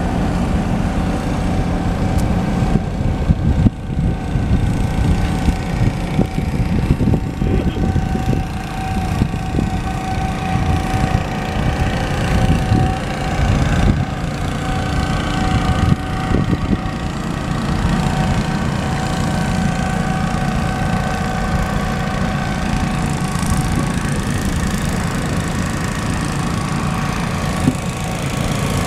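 Motor of a small wooden motorboat running steadily as the boat moves along the water.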